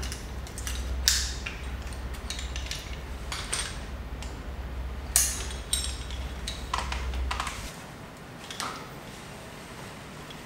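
Metal rope-access hardware, carabiners and rope devices, clicking and clinking as it is handled on the ropes and harness, with sharp clicks about a second in and about five seconds in. A low steady hum runs underneath and stops about three quarters of the way through.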